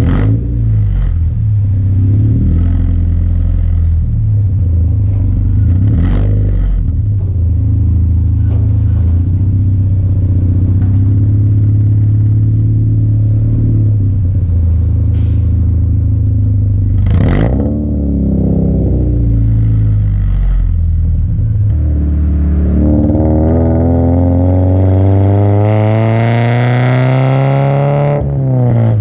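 Subaru BRZ's FA20 flat-four running through an equal-length Ace header, catless front pipe and Laguna 100 cat-back exhaust while driving. It runs at low, steady revs, then pulls hard through the rev range in one long rising climb that falls away just before the end as it shifts.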